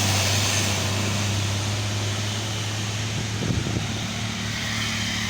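Roadside traffic: a steady low engine hum under the rush of passing vehicles, with a brief low rumble about three and a half seconds in.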